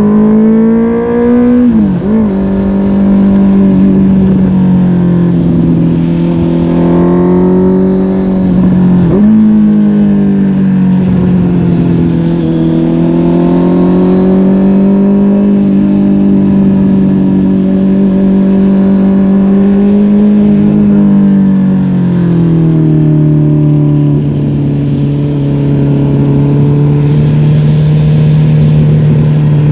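Honda CB650R's inline-four engine through a MIVV GP PRO Carbon exhaust, running under way: the revs climb, dip sharply about two seconds and nine seconds in, hold with gentle swells, and then settle to a lower pitch from about twenty-two seconds in.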